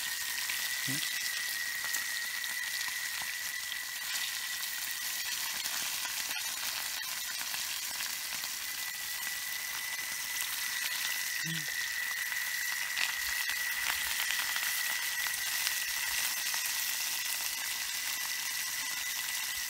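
Fish frying in oil in an aluminium frying pan over a wood fire: a steady sizzle with fine crackling.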